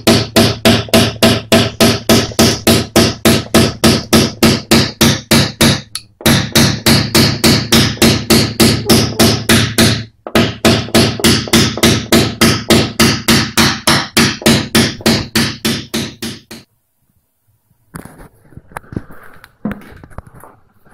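A hammer tapping a knockdown punch against the crease in a Lada Granta's steel front wing in a fast, even rhythm, about three to four light strikes a second, each with a short metallic ring. This is the slow tap-down of a sharp fold in paintless dent repair, worked a millimetre at a time. The tapping pauses briefly twice and stops about three-quarters of the way through, leaving only a few faint scuffs.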